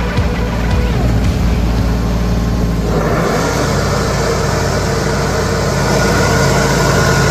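Tractor engine running and driving a PTO-powered finish mower deck, a steady mechanical running sound; about three seconds in it grows louder and fuller, with more hiss.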